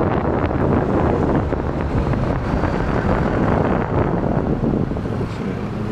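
Heavy wind rumble on the microphone of a moving scooter, over the running engine and road noise of a Yamaha Fino 125.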